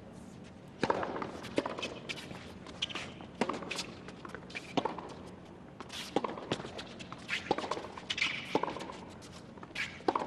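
Tennis ball struck back and forth by racquets in a rally, a sharp pop about once a second. Fainter shoe scuffs and squeaks on the hard court fall between the hits.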